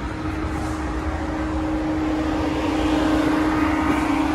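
A Land Rover Defender 110 running while parked: a steady whirring hum with one held tone, growing a little louder in the second half.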